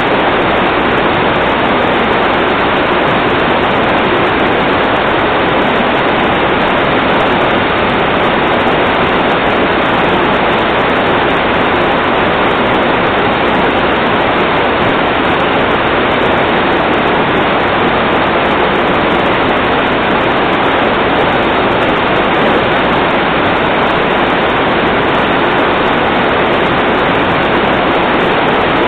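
Loud, steady rush of water, unbroken and unchanging.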